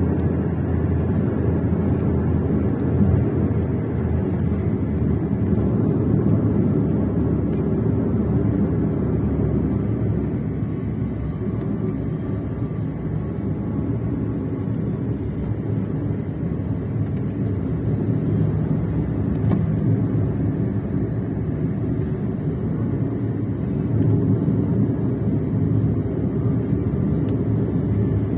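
Steady road and engine rumble heard from inside a moving vehicle while it drives along.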